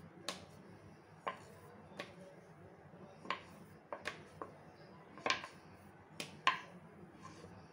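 Light, irregular clicks and taps, roughly one a second, from a rolling pin and rolling board as a small piece of dough is rolled out gently.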